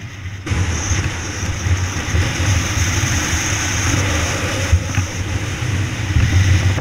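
Dirt bike engine running steadily under way, with wind and road noise over the helmet camera's microphone; the engine note eases briefly at the very start, then pulls on.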